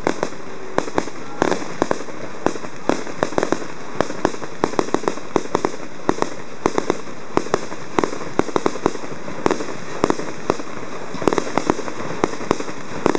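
Fireworks going off: a rapid, irregular string of sharp pops and cracks, several a second, over a steady hiss.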